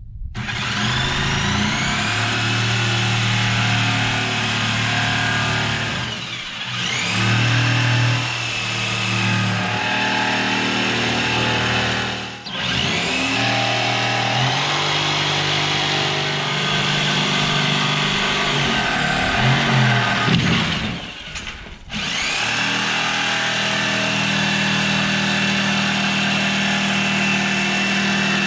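Jigsaw cutting a shelf board along curves and notches. The motor whines steadily, stops briefly about three times and rises in pitch each time it starts back up.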